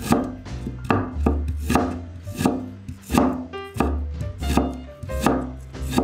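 Kitchen knife chopping fresh ginger on a wooden cutting board: sharp knocks in a steady rhythm, about two a second.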